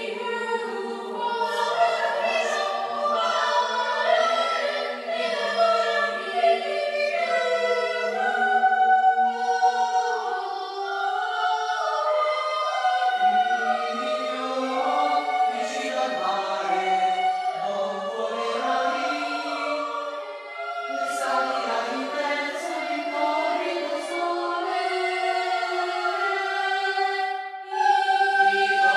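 Children's choir singing, sustained notes in several overlapping parts. A low held note sits under the voices for about the first ten seconds.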